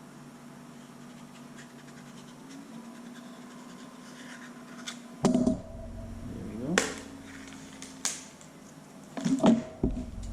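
Scratching and handling noises from hand work with a craft knife, with loud scrapes and knocks in the second half and a few sharp clicks near the end. A steady low hum runs underneath.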